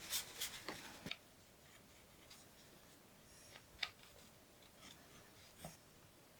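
The last few hand rubbing strokes of abrasive work on the knife, about four in the first second. Then it goes quiet but for a few light clicks and taps.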